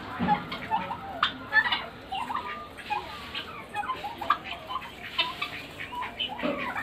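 Helmeted guineafowl calling in a busy run of short, overlapping calls.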